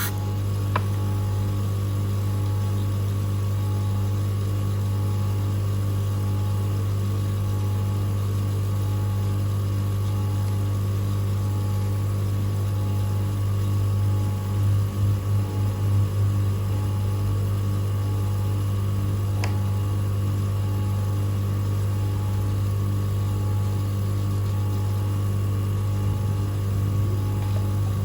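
Electric motor of a manual three-stone lens edging machine running with a steady hum; the level wavers briefly about halfway through.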